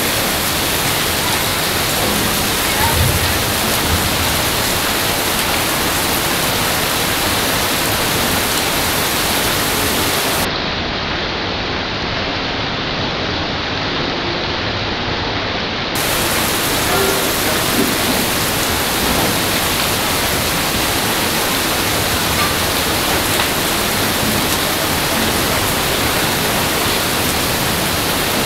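Heavy rain falling steadily on hard ground, a dense even hiss. About ten seconds in it turns duller for five or six seconds, losing its highest hiss, then returns.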